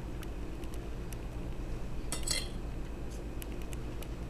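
Light clicks and taps of small fingers on a plastic high-chair tray as a baby picks up bits of food, with a brief louder clatter of clicks about two seconds in. A steady low hum runs underneath.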